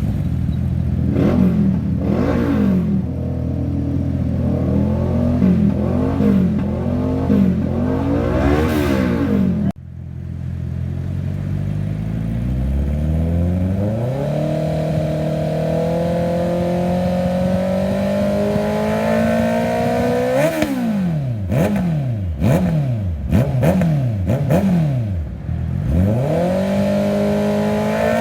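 A 2021 Honda CB650R's inline-four engine revved through an aftermarket exhaust. It starts with a string of quick throttle blips from idle. After an abrupt cut, the revs climb slowly and are held high, then come several more sharp blips and another rise near the end.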